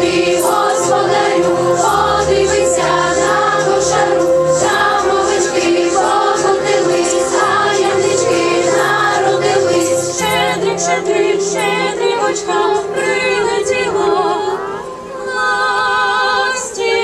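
A choir singing over steady held notes underneath, with the voices wavering in vibrato.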